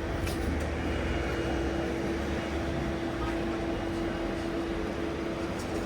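Bus engine running steadily, a low drone with a constant hum.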